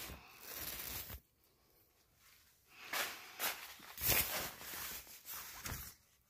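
Tent fabric and mesh rustling as it is handled, in irregular bursts with a lull between about one and three seconds in.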